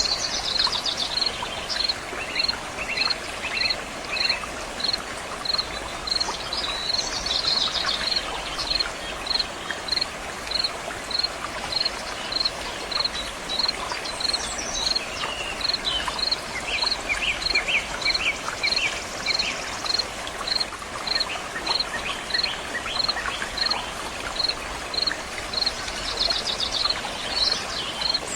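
Water running steadily, with an insect chirping evenly about twice a second throughout and birds calling now and then.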